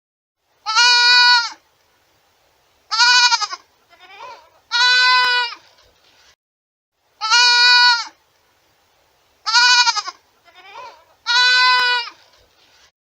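Goat bleating: six loud, high-pitched calls of about a second each, spaced a second or two apart, with two fainter, shorter bleats between them.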